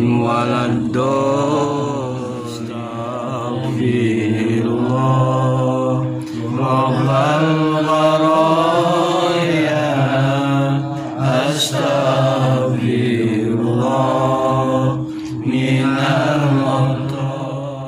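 Men's voices chanting an Islamic prayer together in long, drawn-out melodic phrases over a steady low hum of the group, with brief dips between phrases.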